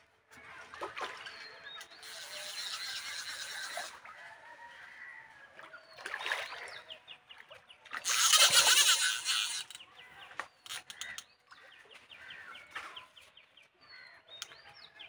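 A hooked fish thrashing and splashing at the surface of a pond in several bursts, the loudest and longest about eight seconds in.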